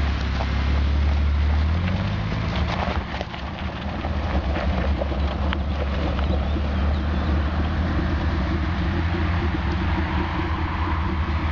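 Jeep Cherokee's engine running close by, then pulling away down a dirt track. The low engine hum is steady at first and turns into a rough, uneven rumble about two seconds in as the vehicle drives off.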